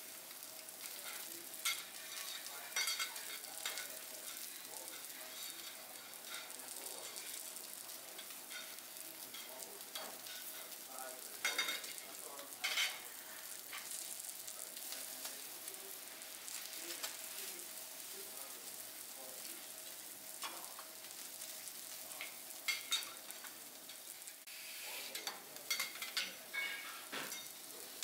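Food sizzling steadily on a teppanyaki griddle, with the sharp clicks and scrapes of metal spatulas on the steel plate, a few at a time, more of them near the middle and near the end.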